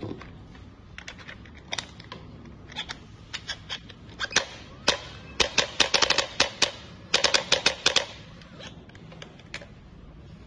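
Biotronix digital electric chiropractic adjustor gun firing impulse clicks: single sharp clicks spaced apart, then two quick runs of about seven clicks a second around the middle, then a few more single clicks near the end.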